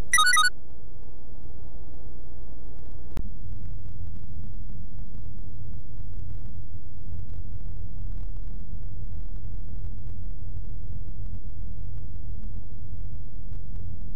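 Car driving on a paved road, heard from inside the cabin: a steady low rumble of engine and tyres. A short high electronic beep sounds right at the start, and a single click about three seconds in.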